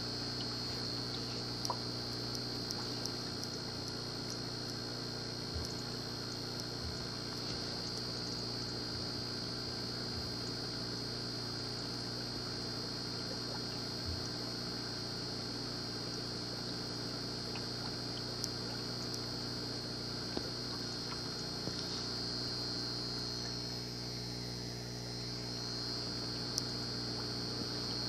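Aquarium pump humming steadily with a high-pitched whine, and a few faint clicks.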